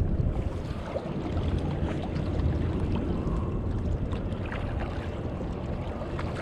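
Steady low rumble of wind buffeting the microphone over the sound of river water moving along the shore, with a few faint ticks.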